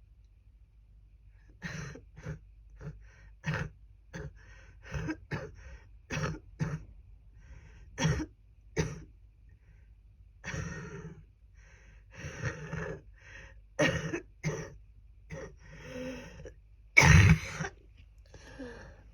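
A person with a bad cold coughing over and over in a long fit of short, chesty coughs heavy with phlegm, starting about two seconds in. The loudest, harshest cough comes near the end.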